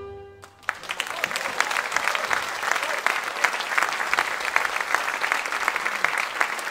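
The last held note of the wind band fades out, and about half a second in the audience breaks into steady applause.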